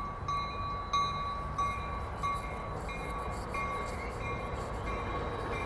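A train's warning bell ringing steadily, about one and a half strokes a second, over the low rumble of a Trinity Railway Express commuter train pulling into the station.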